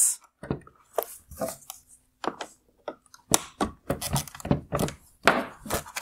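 Plastic clicks and knocks from a wire-harness connector being unlatched and the plastic headlight housing and projector assembly being handled. The clicks come a few at a time at first and grow busier about halfway through.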